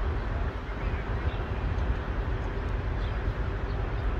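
Steady outdoor rumble of engines and traffic, with a few faint high chirps.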